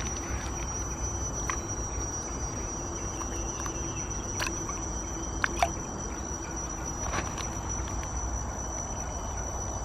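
Insects calling in a steady high-pitched drone, with a few faint scattered clicks.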